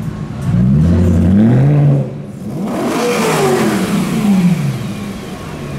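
BMW M3 E93's V8 with a custom exhaust, loud, revving twice: the first rev climbs and is held for about a second and a half, the second rises and then falls back.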